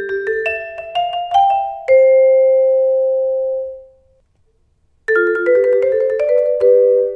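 Vibraphone played with mallets: a quick melodic run that ends on one held note ringing out and fading away. After about a second of silence, a second vibraphone takes up the playing about five seconds in.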